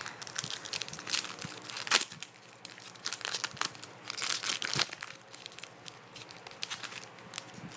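Foil wrapper of a Pokémon TCG booster pack crinkling and tearing as it is ripped open by hand: a run of irregular crackles with a louder tear about two seconds in and another near five seconds.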